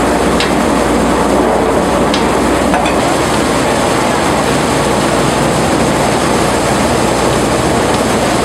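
Stainless-steel roller potato washing machine running, with its water spray nozzles hissing and potatoes tumbling over the rollers in a steady wash of noise, with a few light knocks in the first few seconds.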